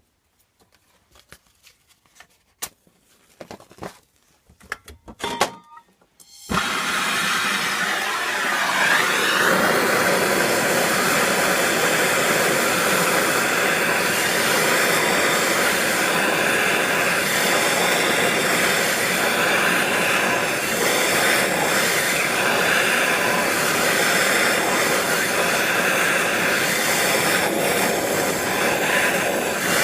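A few quiet clicks and handling sounds, then about six seconds in a handheld gas torch lights and burns with a loud, steady hiss. It is heating the crankshaft pulley and key to loosen them.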